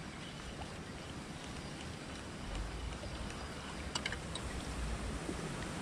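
River water flowing with wind buffeting the microphone, the low rumble of the wind growing about halfway through. A few faint clicks about four seconds in.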